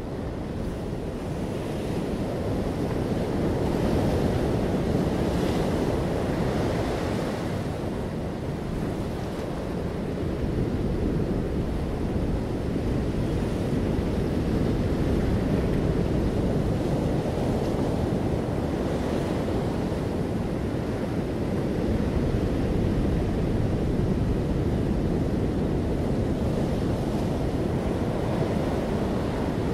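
Small sea waves washing and lapping over seaweed-covered shore rocks, a steady rush with a few brighter splashes, over a low rumble of wind on the microphone.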